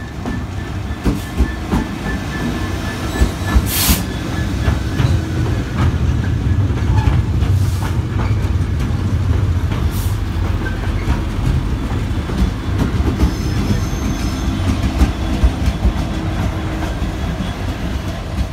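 Sandite railhead treatment train passing slowly over a level crossing, top-and-tailed by two Class 66 diesel locomotives: the heavy rumble of their two-stroke V12 engines with wheels clicking over the rail joints. A few brief hisses stand out about four, eight and ten seconds in.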